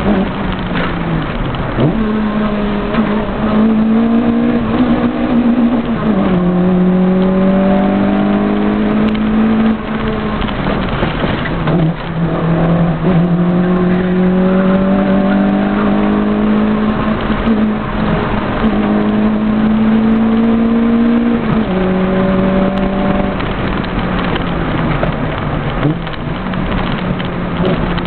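Engine of a 1300 rally car heard from inside the cabin, driven hard: its note climbs steadily for several seconds, then falls back sharply, over and over.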